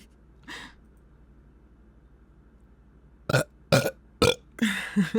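A woman burping: a run of several short, loud burps starting a little past halfway, ending with a longer one.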